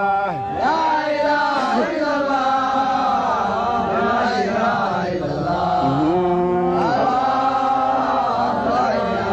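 Islamic devotional chanting by male voices: a drawn-out melody on long held notes that slide up and down in pitch, over a steady low drone.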